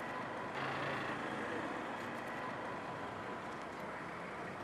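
Steady street traffic noise, with passing vehicles and engines running in the background.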